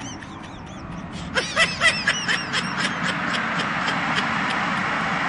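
Handheld hair dryer starting up and blowing steadily, louder over the first few seconds, with a quick run of short, high squeaky sounds over it.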